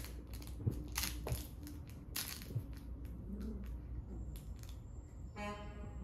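Plush dog toy crinkling and crackling as a puppy jumps and snaps at it, in short irregular crackles, with a brief squeaky note near the end.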